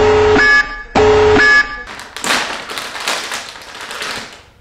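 Alarm-buzzer sound effect: a steady buzzing tone in short blasts, twice, about a second apart. It is followed by a rustle of plastic packaging that fades out near the end.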